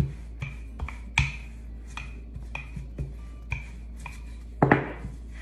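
Wooden rolling pin rolling back and forth over laminated pastry dough on a floured stone countertop, knocking sharply about twice a second, with a louder brushing sound near the end.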